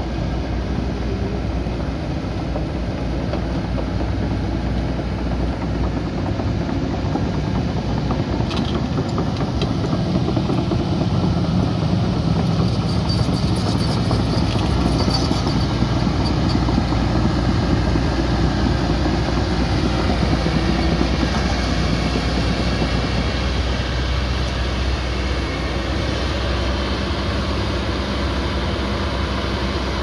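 Kobelco SK220 crawler excavator working: its diesel engine runs steadily under hydraulic load, swelling slightly as it digs and slews, with a few short clicks in the middle.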